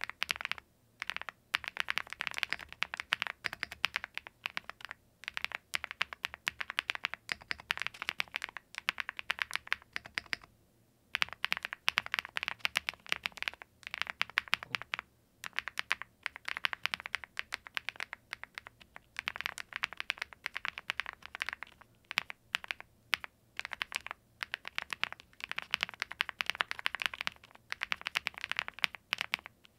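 Fast typing on a Zoom75 mechanical keyboard: dense runs of key clicks and keycap clacks, broken by short pauses, with a longer pause about ten seconds in.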